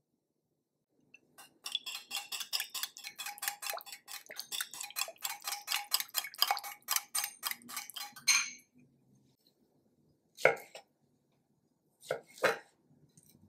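Wire whisk rattling fast against a small glass bowl as it beats an olive-oil and vinegar dressing, about six clicks a second for some seven seconds. Then three sharp knocks, the last two close together near the end, from a kitchen knife cutting figs on a wooden board.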